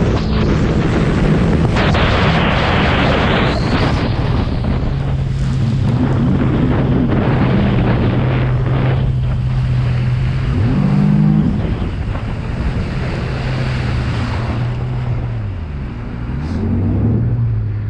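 Sea-Doo GTX jet ski engine, freshly rebuilt, running under way with heavy wind and water rush. About sixteen seconds in the engine pitch drops as the throttle eases off, then climbs back up.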